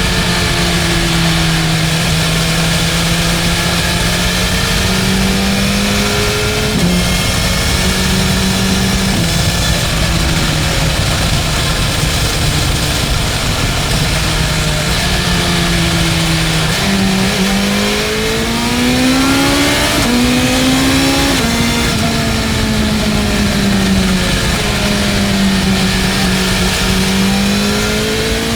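BMW M1000R's inline-four engine under way, its note rising and falling with the throttle, with sudden steps in pitch at gear changes and a run of climbs about two-thirds of the way through.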